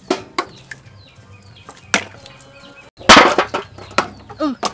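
Eggs being cracked against the rim of a steel bowl: a series of sharp cracks and taps, the loudest cluster about three seconds in.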